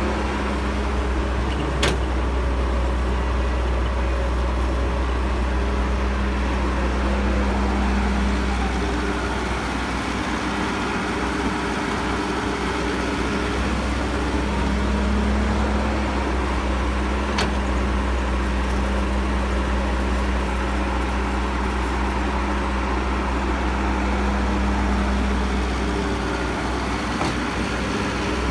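Caterpillar E315B hydraulic excavator's diesel engine running continuously while digging, its note swelling and easing every several seconds as the work cycles through. Two short sharp clicks, one about two seconds in and one past the middle.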